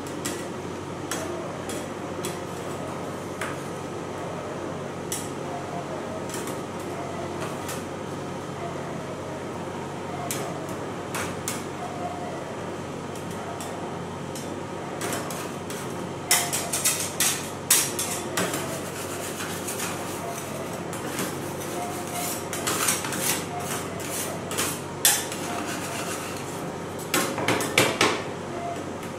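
Metal spatula scrapers chopping fruit on a frozen steel ice-cream-roll plate: sharp clacks of metal on metal, few at first and coming in dense clusters from about halfway through. A steady machine hum runs underneath.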